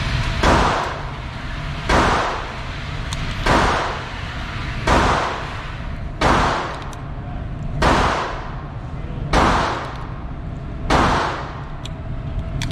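Gunshots fired one at a time at a steady pace, about one every one and a half seconds, eight in all, each followed by a short echo.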